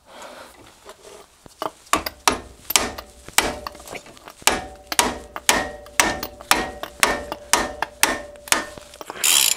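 Hammer striking metal at a car's front brake caliper to knock its bolts loose. Sharp, ringing metallic taps come about two a second, starting about two seconds in.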